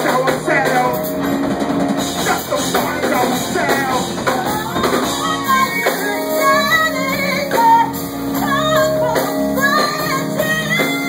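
Live band music with drum kit and guitar over held low notes, and a voice singing along with the band.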